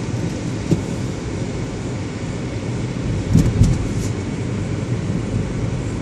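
Car driving on a snow-covered city road: a steady low rumble of engine and tyres. There is a short knock under a second in and a louder cluster of bumps and clicks about three and a half seconds in.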